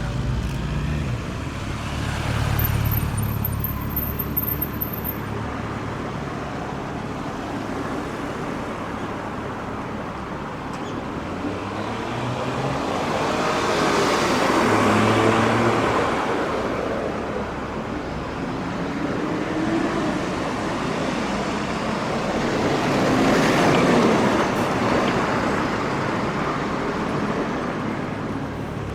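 Road traffic: cars and other vehicles driving past on a city street, with two louder passes, about halfway in and again near three-quarters in, their engine note falling as they go by.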